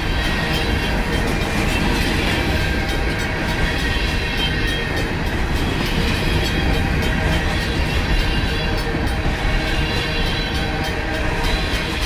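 Freight cars of a long Union Pacific mixed freight rolling steadily past at a grade crossing: a continuous rumble of wheels on rail with clickety-clack over the joints. A RACO mechanical crossing bell rings over it.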